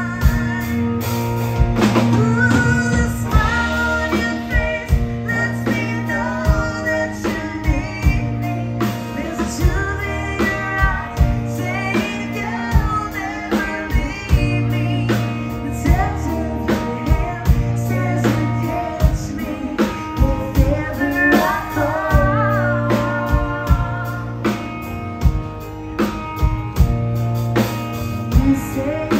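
A woman singing a country ballad live into a microphone, backed by a band with guitar, a steady bass line and a drum beat.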